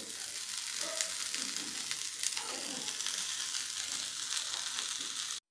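A pan of lentils, onion and grated coconut frying in oil, sizzling steadily as chopped coriander is dropped in by hand, with a few faint clicks. The sizzle cuts off suddenly near the end.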